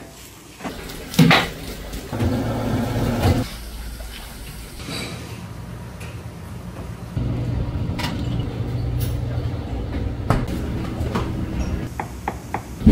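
Sushi-kitchen work sounds: a sharp knock about a second in and some clatter, then a steady low hum from about seven seconds in, with a quick run of knife strokes on a wooden cutting board near the end as a cucumber is thinly sliced.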